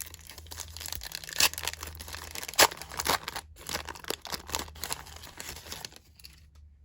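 A trading card pack's wrapper being torn open and crinkled: a run of sharp crackles and rips that stops about six seconds in.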